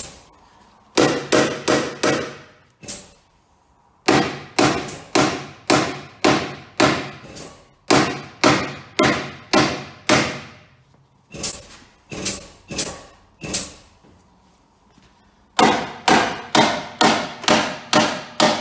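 Hammer beating on the creased steel of a Peugeot Partner van's crumpled front corner while the panel is held under a chain pull, working the crease so the metal stays where it is pulled. Sharp, ringing metal strikes about two a second, in four runs with short pauses between.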